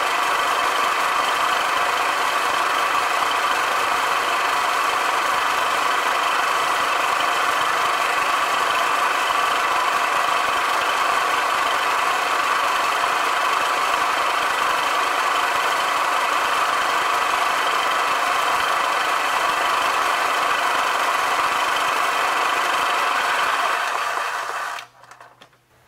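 Milling machine running a 3/8-inch end mill, cutting a trough into an aluminum jig block: a steady, loud machining noise that cuts off about a second before the end as the spindle stops.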